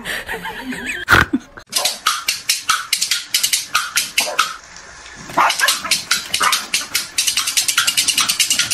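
Corgis barking in quick runs of short, high yaps, about four a second, with a short break near the middle. A single sharp knock comes about a second in.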